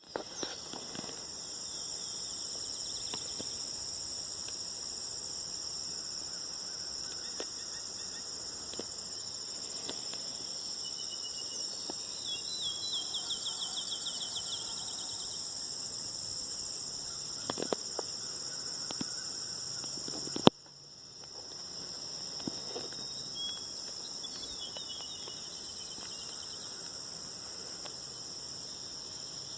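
Steady high-pitched night insect chorus, with a faint rapid series of short calls twice, the second near the end. A sharp click about two-thirds through.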